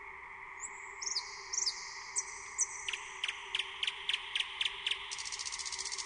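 Nightingale singing: a run of high whistled notes, then a series of sharp repeated notes about three a second, ending in a fast rattling trill.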